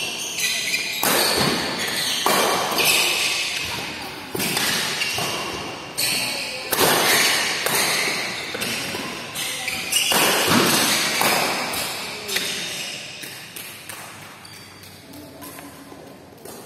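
Badminton doubles rally: rackets hitting the shuttlecock every second or two, each hit echoing in a large hall. The hits die away near the end as the rally stops.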